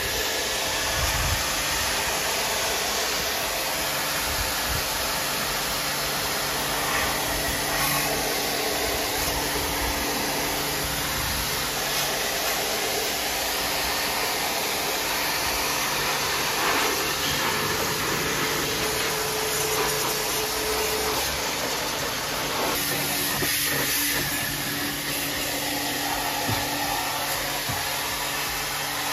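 Portable high-pressure water washer running steadily, its motor humming under the hiss of the water jet as it sprays the condenser coil fins of an air conditioner's outdoor unit.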